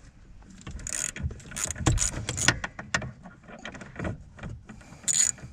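Ratchet wrench clicking in irregular runs as a Loctited 13 mm pinch bolt on a steering shaft is worked loose, with a brief high squeak near the end.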